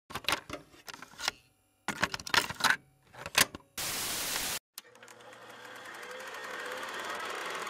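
VHS-style intro sound effect: a run of mechanical clicks and clunks, like a tape deck loading and starting to play, then a burst of TV static hiss about four seconds in that cuts off suddenly. After the static, steady room noise fades in and grows louder.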